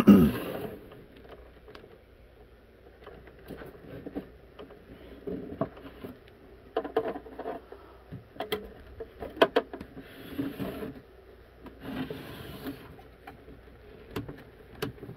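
Handling noise from a Tandy TRS-80 Model 4P's plastic case on a wooden table: a heavy knock right at the start, then scattered clicks, taps and rubbing as the case is turned and its panels felt over.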